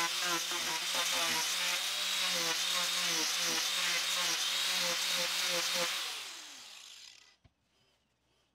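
Angle grinder with a sanding disc grinding down wood, its motor pitch wavering as the disc bites and eases off. About six seconds in it is switched off and winds down with a falling whine, leaving near silence broken by a single small click.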